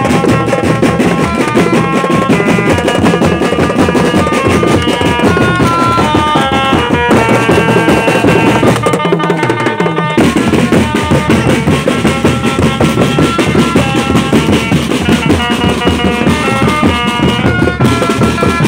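Drum band playing: drums beating busily under a melody of held notes, with a short thinning of the drums about nine seconds in.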